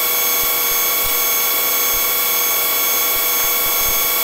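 Police helicopter in flight: steady engine and rotor noise with several constant whining tones over a hiss.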